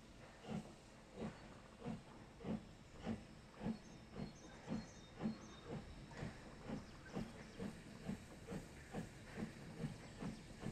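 Harz narrow-gauge DR Class 99.23–24 2-10-2T steam locomotive chuffing as it comes closer, its exhaust beats quickening from about two to nearly three a second as it picks up speed, over a hiss of escaping steam.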